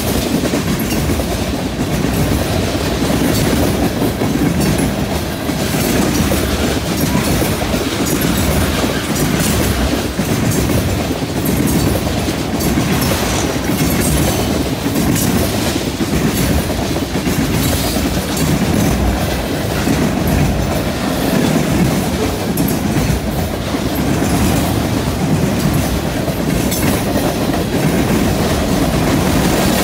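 Freight train cars (tank cars, then boxcars and a covered hopper) rolling past close by: a steady rumble of steel wheels on rail with repeated clickety-clack as the wheel sets cross rail joints.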